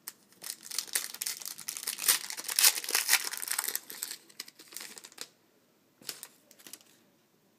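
A trading card pack's wrapper being torn open and crinkled by hand, a dense crackling that lasts about five seconds, followed by a couple of brief crinkles near the end.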